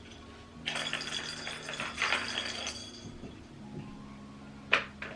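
Soft background music, with a cat toy rattling as the cat bats at it for a couple of seconds, and a sharp tap near the end.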